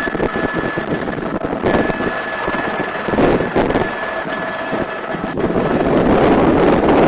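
Helicopter in flight, heard from its open door: a constant rotor and engine din with a faint steady high whine, and wind buffeting hard on the microphone.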